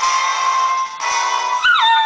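Cocker spaniel puppy howling along to music: about a second and a half in, its howl jumps up in pitch and then slides down in a long falling note over the music.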